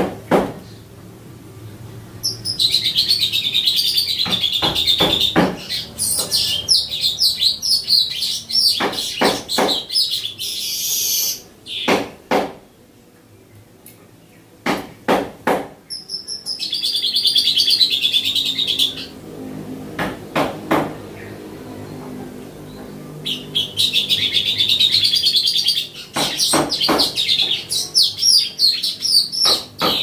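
Caged streaked weaver singing: about five long, buzzy, chattering song phrases in turn, with sharp clicks between them.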